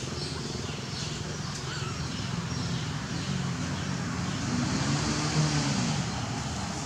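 A motor vehicle's engine running steadily, rising and then falling in pitch and getting louder about five seconds in, over a constant high hiss.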